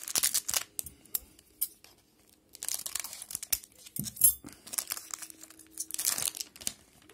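Foil wrapper of a 2011-12 Pinnacle hockey card pack crinkling and tearing as it is handled and opened, in several rustling bursts.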